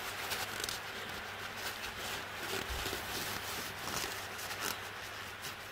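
Faint rustling and scratchy rubbing of a rag worked between gloved hands, wiping an ATV engine's oil dipstick clean.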